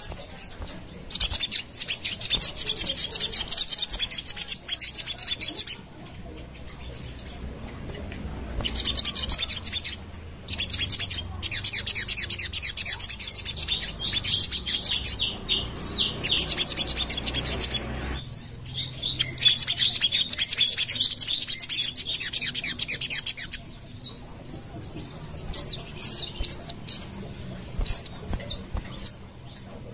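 Sogon songbird singing: long runs of very fast, high trilling notes, each run lasting several seconds, broken by short pauses and ending in scattered short chirps.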